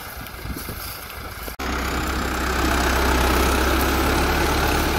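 Farm tractor's diesel engine running steadily; about a second and a half in there is an abrupt cut to a closer, louder, deeper engine rumble.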